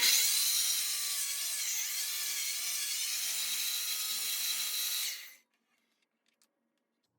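Miter saw running with its blade cutting a taper into a wooden table leg held in a tapering jig: a high whine mixed with the rasp of the cut, stopping abruptly about five seconds in.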